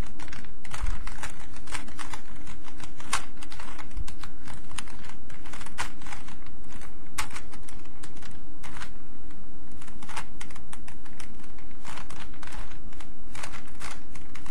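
Plastic Rubik's Cube being turned by hand, its layers clicking irregularly, a few clicks a second.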